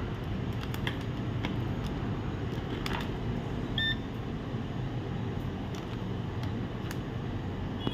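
Low steady hum with a few faint clicks, and a short electronic beep about four seconds in from a digital multimeter being set up to measure resistance; a steady high beep starts at the very end.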